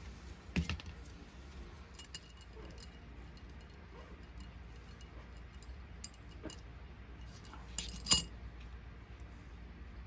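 Small metal parts of a diecast toy clicking and clinking as they are handled on a hard surface, with a sharper, brighter clink about eight seconds in.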